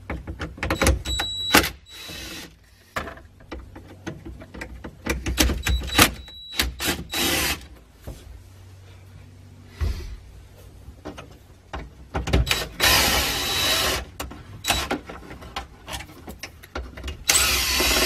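Cordless drill-driver running in several short bursts to back out small dashboard screws, the longest run lasting about a second and a half. Clicks and knocks from the screws and plastic trim fall between the runs.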